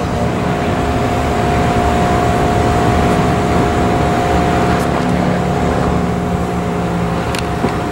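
Jet airliner engines running, a steady rumble with a held whine.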